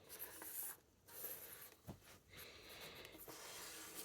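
Faint rustling and handling noises of a potted orchid being set down and moved about, with one soft tap about two seconds in.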